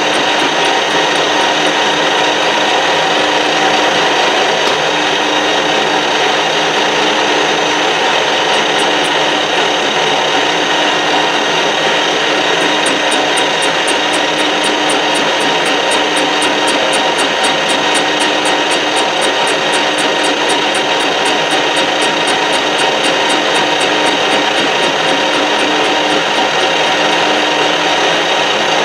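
Metal lathe running under power, a boring bar taking a cut inside the bore of a rebrazed gear blank: a steady drone of motor and gearing with a fast, even ticking high up that drops away for a few seconds partway through.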